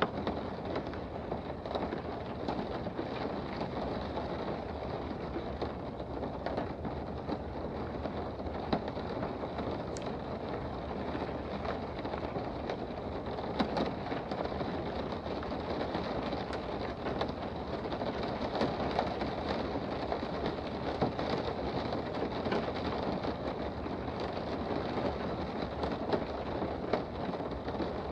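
Steady rain heard from indoors, a dense hiss with many small drop ticks scattered through it and a few sharper ones.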